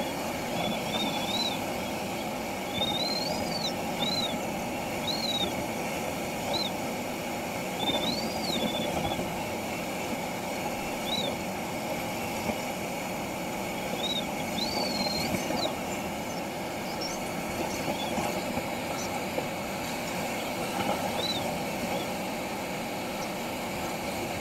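Steady rush of air over a glider's canopy in flight. Over it come short chirping tones from the cockpit's audio variometer, each rising and falling in pitch, irregular and mostly in the first two-thirds; they signal brief patches of lift.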